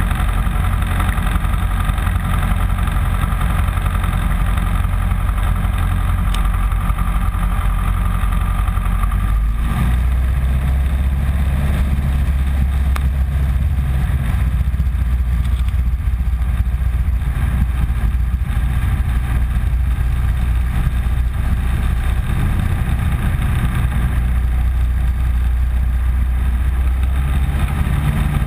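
Piper PA-15 Vagabond's small air-cooled flat-four engine and propeller running steadily at low power, heard from inside the cabin. The engine note changes about ten seconds in and again near the end.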